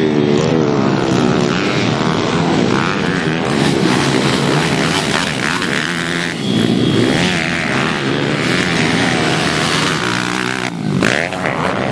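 Small four-stroke pit bike engines racing, their pitch rising and falling as the riders rev up and back off through the track.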